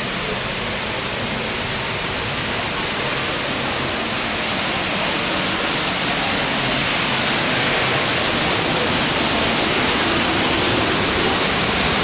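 Steady rushing of Düden Waterfall, heard from inside the cave behind the falls, slowly growing louder.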